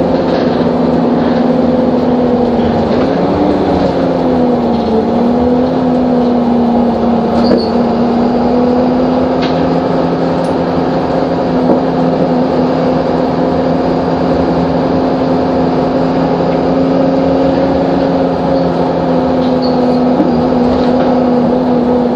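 Optare Solo bus's diesel engine running steadily under way, heard from the rear of the saloon near the engine, with one brief rise and fall in engine pitch about three seconds in. A few faint clicks sound now and then.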